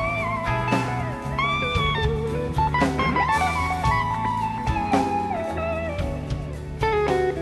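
Electric slide guitar soloing with gliding notes over a live blues-rock band of drum kit, bass and a second electric guitar.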